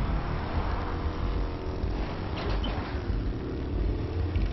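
Motorcycle engine running at low revs, steady, with street traffic noise around it.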